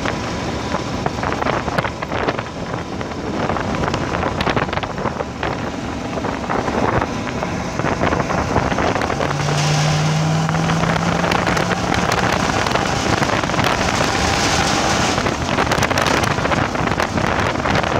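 Wind buffeting the microphone of a hood-mounted camera on a vehicle driving a gravel road, a continuous gusty rumble with frequent crackles from the road. A low steady hum comes in for a few seconds a little past the middle.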